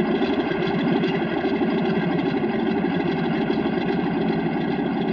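Propeller airplane engine running steadily in flight: a fast, even drone.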